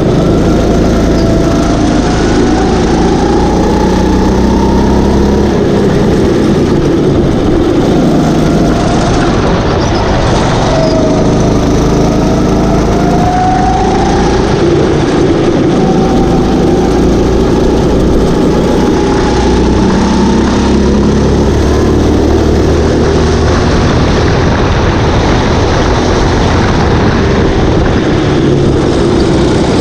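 Go-kart engine running under racing load, its pitch rising and falling repeatedly as the throttle is opened and closed.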